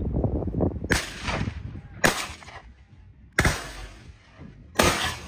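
Four gunshots fired at a wild boar running down a trail, about a second or so apart. Each is a sharp crack with a short echoing tail.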